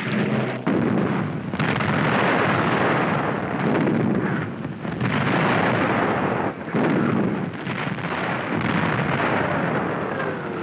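Battle sound effects on an old newsreel soundtrack: a continuous rumble of explosions and artillery fire that swells and dips in several long waves, with short breaks between them.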